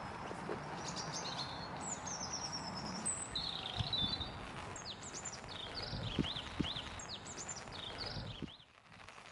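Small birds chirping and singing in repeated quick, high, sliding phrases over a steady outdoor background hiss. Soft, low footsteps fall a few times on a wet path. The background drops away sharply near the end.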